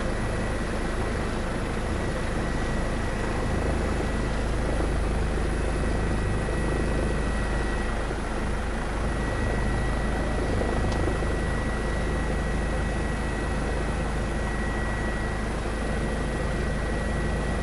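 Helicopter noise during a hoist rescue hover: steady rotor and turbine sound with a thin, high, constant whine, unbroken throughout.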